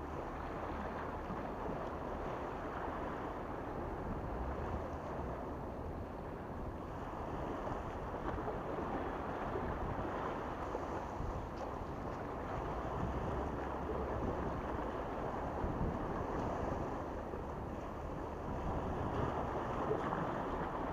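Small sea waves washing against breakwater rocks in a steady rush, with wind buffeting the microphone.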